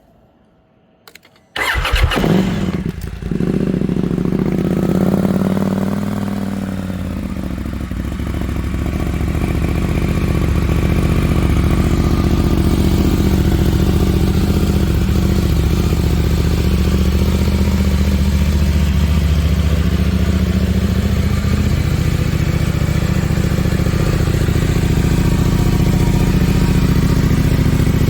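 KTM 790 Adventure R's 799 cc parallel-twin engine with a full Akrapovič titanium exhaust being started: a short click, then the engine catches about a second and a half in. It runs at a raised idle that swells, eases off, and then settles into a steady idle.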